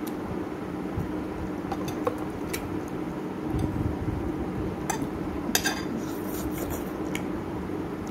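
Cutlery clinking against ceramic plates as noodles are eaten: a few scattered clinks, the loudest cluster a little past halfway, over a steady low hum.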